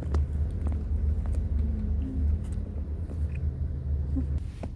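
Low, steady rumble of a car heard from inside its cabin as it drives along.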